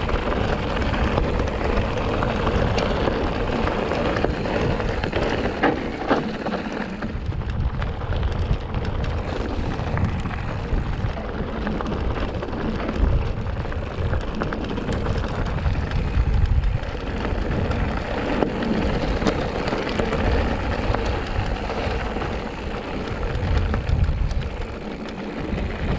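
Mountain bike tyres rolling over a loose gravel track, a continuous crunching, crackling rattle, with wind buffeting the microphone.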